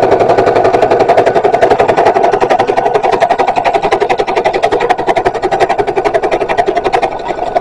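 Electronic domestic sewing machine running steadily, its needle clattering in a fast, even rhythm as it sews a boning channel through layered fabric; the stitching eases slightly near the end.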